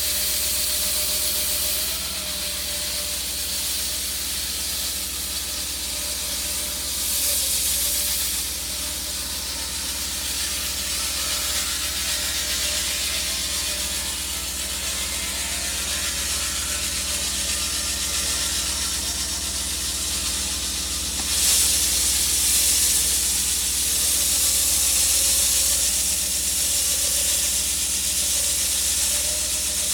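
Concrete saw cutting through thick concrete: a steady hissing, grinding run with a faint machine whine underneath, a little louder from about two-thirds of the way through.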